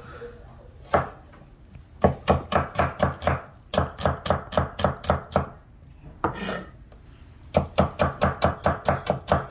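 Steel cleaver slicing small red onions on a round wooden chopping block: a single knock about a second in, then quick knocks of the blade on the wood at about six a second, in three runs with short pauses between.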